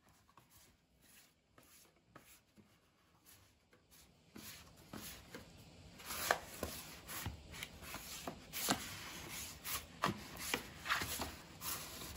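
A cardboard six-pack beer carrier scraping, rustling and knocking on a wooden floor as a cat pushes it around with its head inside: irregular knocks and scrapes that start about four seconds in and get busier and louder from about six seconds.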